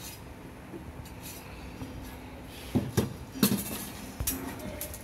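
Cut steel pieces handled on a workbench, clinking and knocking against each other and the bench: a few sharp metallic clinks with short ringing in the second half.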